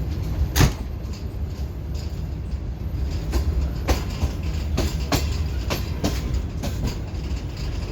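Passenger express train's wheels clattering over the track as it arrives: a steady low rumble with irregular sharp clicks, the loudest about half a second in.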